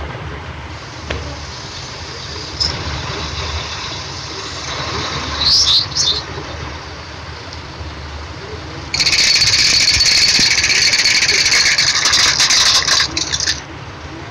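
A car's low engine rumble as its tyre slowly crushes small objects on asphalt. A brief squeak comes about halfway through, then a loud, steady, high-pitched squeal lasts about four and a half seconds as something is squashed under the tyre.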